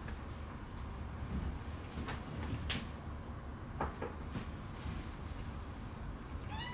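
A few scattered light knocks and clicks from someone moving about on a wooden floor, over a steady low room rumble. Near the end a cat gives one short meow that rises and falls.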